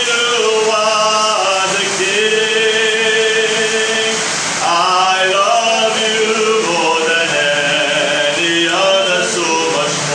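A man singing a slow worship chorus into a microphone, with long held notes.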